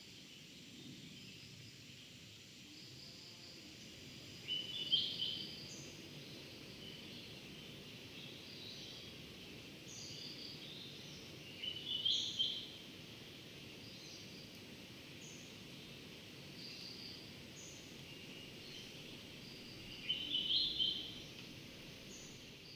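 Countryside ambience: a bird sings a short song three times, about eight seconds apart, while another bird gives brief high calls every few seconds over a steady low background rumble.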